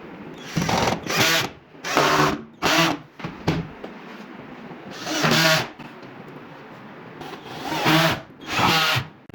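Power drill running in short bursts, about seven of them, each under a second long, while working on chipboard.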